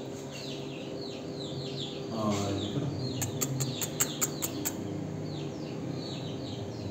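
Chicks peeping: a steady string of short, falling chirps, with a quick run of about eight sharp ticks around the middle, over a low steady hum.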